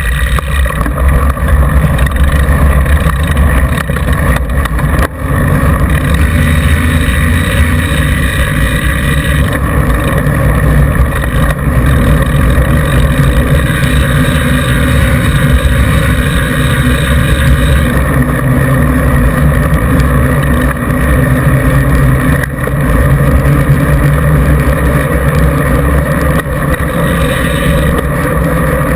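Wind buffeting the microphone and a knobby mountain-bike tyre rolling fast on asphalt, giving a loud, steady, deep rushing noise with a faint hum above it. There is a short dip about five seconds in.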